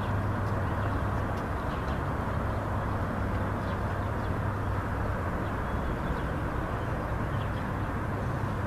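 Steady low rumble of a diesel-hauled commuter train approaching from a distance, with faint bird chirps over it.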